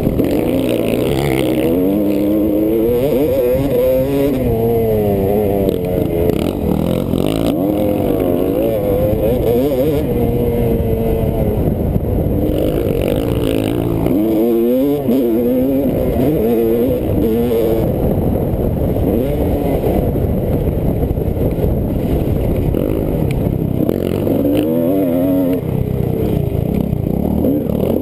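Motocross bike's engine heard on board while racing, its revs repeatedly climbing and dropping through the throttle and gear changes.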